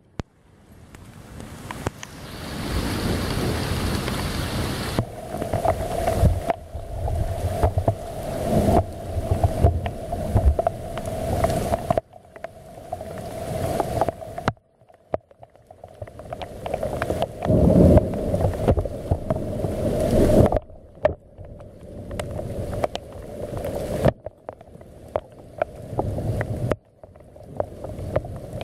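Thunderstorm noise: deep rumbling that swells and fades again and again, several times cutting off abruptly, with wind buffeting the microphone.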